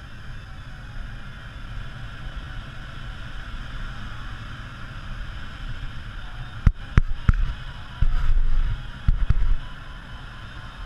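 Steady rush of airflow in the cockpit of an ASK 14 motor glider in flight. Partway through come a few sharp knocks, then louder, heavy low thumps lasting about a second.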